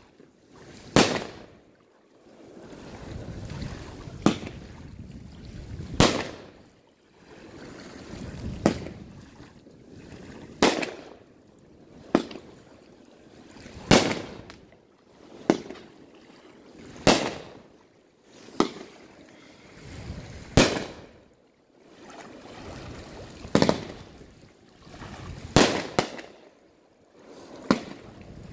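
Aerial fireworks shells launching and bursting one after another: about fifteen sharp bangs, one every one and a half to two seconds, with a rushing noise swelling between them.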